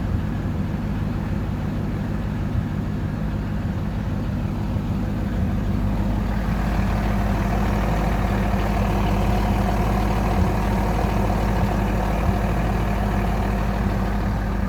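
1999 C5 Corvette's LS1 V8 idling steadily with the noise of a failing clutch throwout bearing. About six seconds in it gets a little louder and a higher tone joins the idle.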